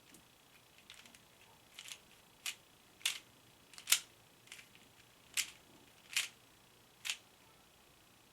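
Sharp plastic clicks of a 3x3 Rubik's cube being turned, one turn at a time at an irregular pace of roughly one a second, the loudest about four seconds in.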